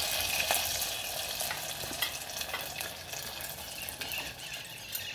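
Capiçoba fritter batter frying in hot fat in a pot: a steady sizzle with crackling pops, slowly fading.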